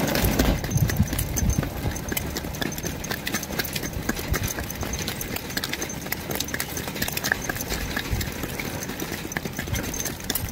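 Pony hooves clip-clopping on a paved road shoulder, from a harnessed driving pony pulling a cart and a small filly walking beside it, over a steady low rumble.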